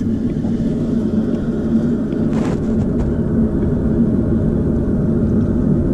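Steady low rumble of water running into a kiddie pool from a garden hose, muffled around a camera at water level, with one brief splash about two and a half seconds in.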